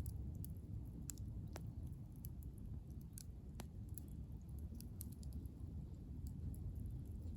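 Wood fire crackling: irregular sharp snaps and pops over a low steady rumble.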